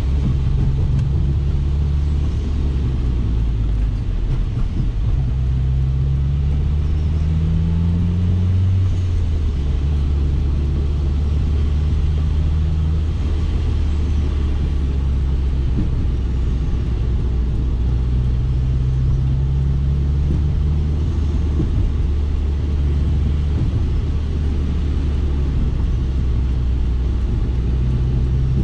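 2004 Subaru Impreza WRX STI's turbocharged flat-four engine running steadily at road speed, with tyre and road noise. Its pitch rises about seven seconds in, then drops back near nine seconds.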